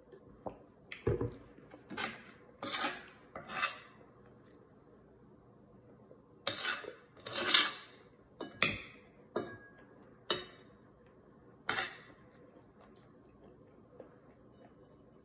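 Metal spoon and fork scraping and clinking against a ceramic plate while scooping fried rice: a string of about ten short scrapes, with a low knock about a second in.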